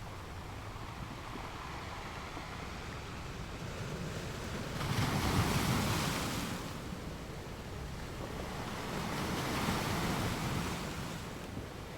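Ocean waves surging and breaking, as a steady wash of surf with two swells: a louder one about five seconds in and a softer one about four seconds later.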